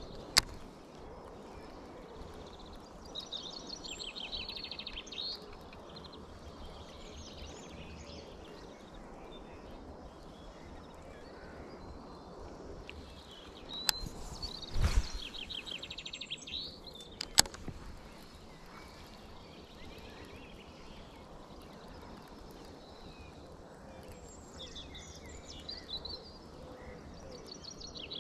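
Songbirds singing in short bursts of rapid trilling over a steady outdoor background, with a few sharp clicks and a dull thump near the middle.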